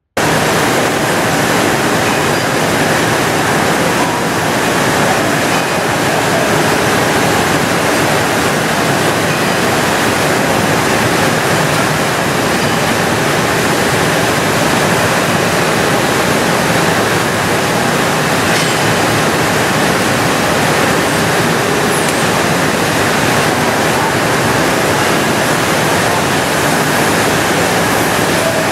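Okuma LFS10 M twin-spindle CNC lathe running, a steady, even rushing noise with a faint hum under it.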